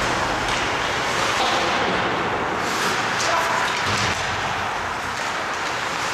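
Ice hockey play in an indoor rink: echoing knocks and bangs of sticks, puck and players against the boards over a steady wash of skating and crowd noise.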